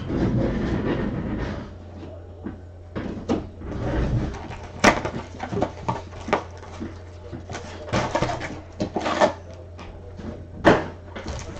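Scattered clicks and knocks with short bursts of rustling, like objects being handled, over a steady low electrical hum.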